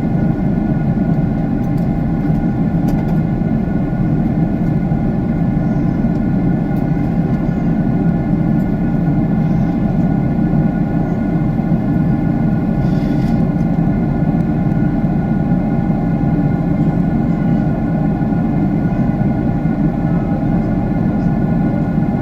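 Airliner jet engine and airflow noise inside the cabin in flight: a steady, even low rush with a few faint steady tones above it.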